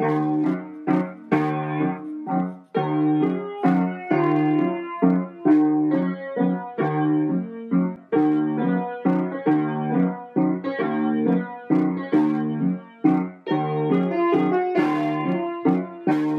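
Background music: a piano or keyboard playing a steady, rhythmic pattern of repeated chords.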